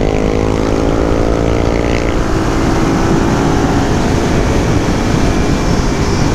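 Suzuki DR-Z400 supermoto's single-cylinder four-stroke engine running while riding, its pitch rising gently for about two seconds as it pulls out of a corner, then mostly buried under heavy wind rush.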